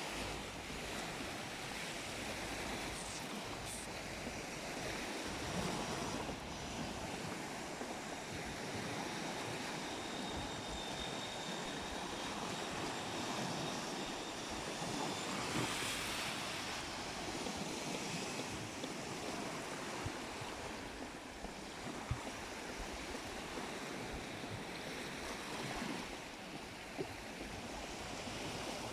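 Sea waves washing onto the shore, a steady surging rush that swells and eases, with wind buffeting the microphone.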